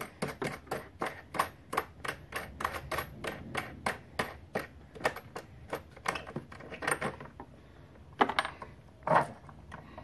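Quick metallic clicking, about five clicks a second, as the retaining nut on a Harley-Davidson tour pack lock cylinder is unscrewed by hand. The clicking slows to a few scattered clicks over the last few seconds.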